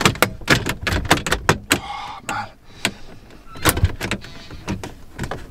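Vauxhall Astra VXR's plastic dash trim panel being pulled off against its clips by hand: a quick run of sharp plastic clicks and creaks, with a short scrape about two seconds in and then a few scattered clicks.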